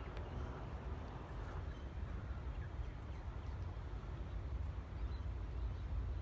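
Steady low wind rumble on the phone's microphone, with no distinct event; only a couple of faint ticks near the start.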